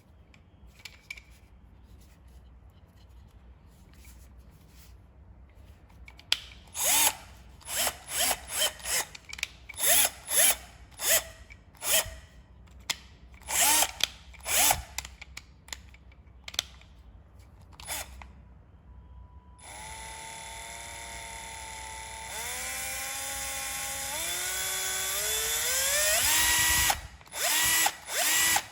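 Bosch GSB 120-LI 12 V cordless drill run in a string of short trigger blips. It is then held running steadily, its motor pitch rising in steps as the variable-speed trigger is squeezed further, before it stops and a few more short blips follow.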